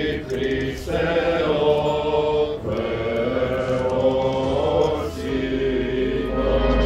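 Voices chanting in long held notes, with a low steady drone underneath that grows louder near the end.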